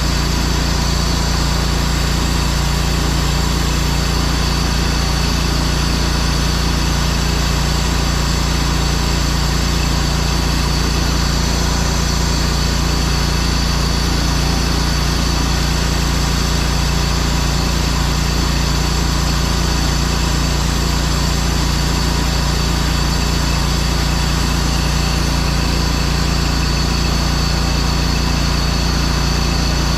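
Pressure washer's engine running steadily while its 2.3 chemical injector draws solution during a timed draw test.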